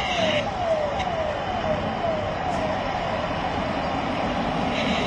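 A motorcade escort siren gives a fast repeating falling wail, about two sweeps a second, that fades partway through and comes back near the end. Under it is the steady noise of approaching vehicles.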